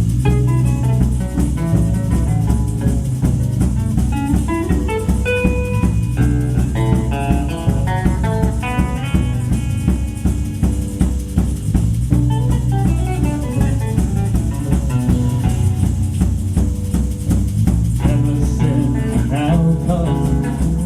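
A band playing an instrumental break with no singing: guitar carrying a melody of shifting notes over bass and drum kit.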